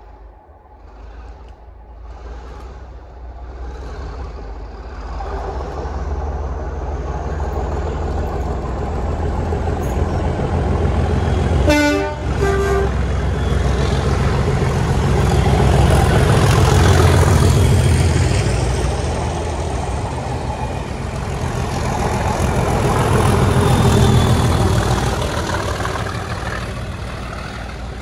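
Class 37 diesel locomotives working hard under power, their English Electric V12 engines building to a heavy rumble as they approach and pass, then starting to fade near the end. About halfway through, a short blast on the locomotive's horn.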